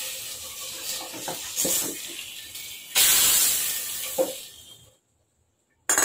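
Hot coconut-oil tempering of mustard seeds, curry leaves and dried red chillies sizzling as it meets boiling curry. The hiss fades, flares up again about three seconds in as the rest is scraped from the pan with a wooden spatula, with a few knocks of spatula on pan, then dies away.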